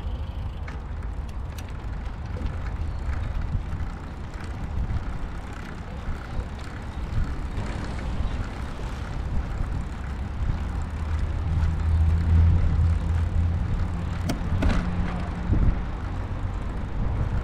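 Low rumble of a recumbent trike's tyres rolling on a tarmac path, with wind on the microphone. A steady low hum comes in past the middle and fades a few seconds later. There is a single sharp click late on.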